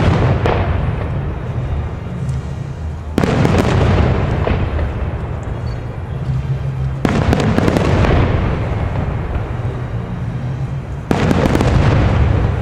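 Aerial firework shells bursting in loud salvos about every four seconds, three in all, each report trailing off into a long rolling echo.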